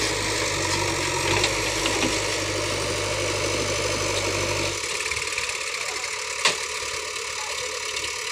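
JCB 3DX backhoe loader's diesel engine running steadily while the backhoe digs and lifts soil; its low rumble drops away about five seconds in. A single short knock comes about a second later.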